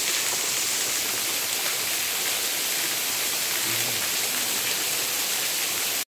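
A waterfall's falling water makes a steady, even rush with a hiss-like top.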